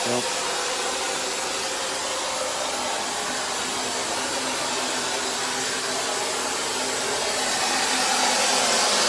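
Steady whirring hiss of running machinery with a faint hum under it, growing a little louder near the end.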